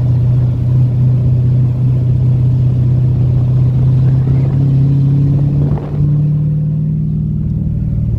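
Ford Mustang's engine running as the car drives along, a steady low drone heard from the open convertible's cabin. Near the six-second mark it dips briefly and comes back a little higher in pitch.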